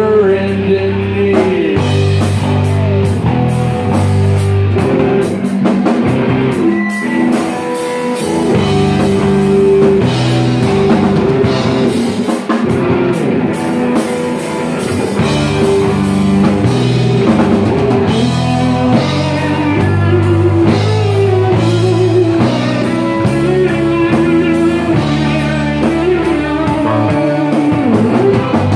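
Live rock band playing: electric guitar lines with bent notes over an electric bass line and a drum kit with cymbals.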